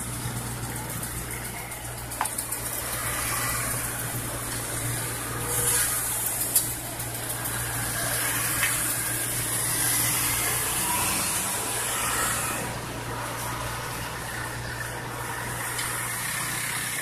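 Road traffic: motorcycles and cars passing one after another, their tyres hissing on the wet road, over the steady low hum of an engine running.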